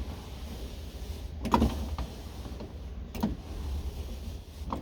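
A car door's manual window crank and regulator being worked: three short clicks or knocks, the loudest about a third of the way in, over a steady low rumble.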